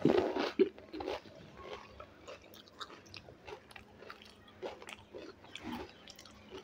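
Close-miked chewing of a mouthful of dahi bhalla, a lentil dumpling soaked in yogurt: mouth sounds and lip smacks, loudest in the first second, then softer irregular clicks.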